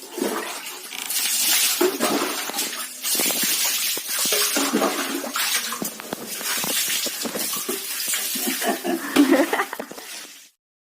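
Water splashing and sloshing in irregular surges, with small knocks mixed in; the sound cuts off suddenly near the end.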